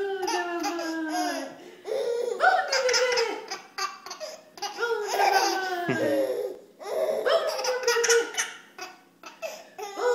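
A baby laughing hard: about five long bouts of belly laughter, each sliding down in pitch, with short breaths between them.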